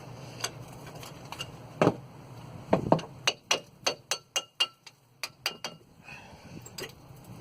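Sharp metal knocks and clinks from tools and brake parts being handled during a front brake pad change. A couple of heavier knocks come about two and three seconds in, then a quick run of about ten ringing metallic clicks, several a second, before they stop.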